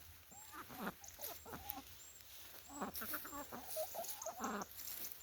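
A flock of chickens clucking, with short calls scattered throughout.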